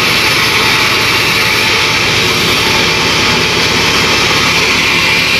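Sawmill machinery running steadily without a cut: a loud, continuous drone over a fast, even low chugging pulse.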